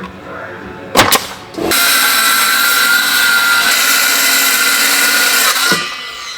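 Two sharp knocks, then a handheld power tool runs steadily for about four seconds before stopping.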